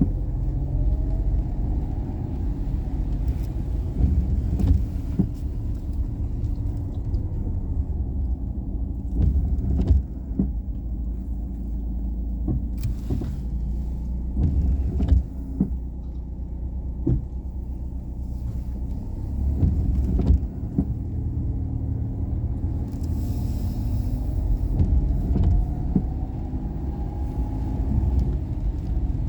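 A Daihatsu Esse's small three-cylinder engine and road noise while driving: a steady low rumble with scattered knocks and clicks. The engine pitch rises a little near the start and again near the end as the car picks up speed.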